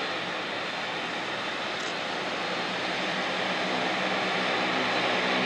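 Twin Pratt & Whitney PW150A turboprops of a Bombardier Dash 8 Q400 running at taxi power, a steady propeller drone under a dense hiss, growing slowly louder.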